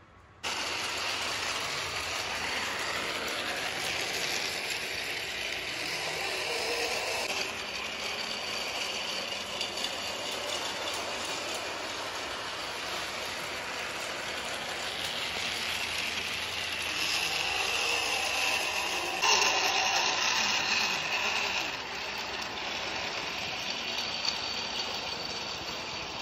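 Rail King toy train running around its plastic track: a steady mechanical whirring and rattling of its small motor, gears and wheels, starting abruptly about half a second in.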